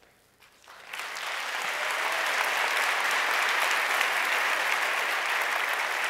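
An audience applauding: the clapping rises quickly about a second in and then holds steady.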